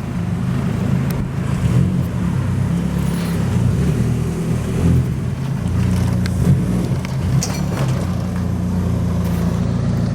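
Car engine running steadily with a low drone, with a few faint clicks over it.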